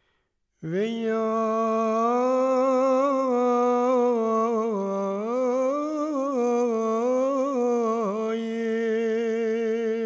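A single wordless voice, humming or chanting, holds one long low note that starts about half a second in. Its pitch wavers and dips a little along the way.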